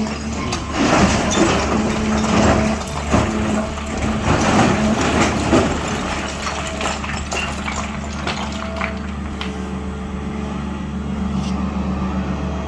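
SANY 365H long-boom excavator's diesel engine running steadily under load, with a faint hydraulic whine. Clanks and scrapes, dense for the first half, then sparse.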